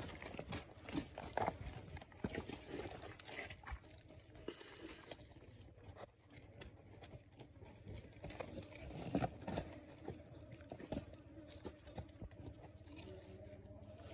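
Komodo dragon swallowing a small animal whole, with irregular crunching and clicking as its jaws work the carcass down its throat.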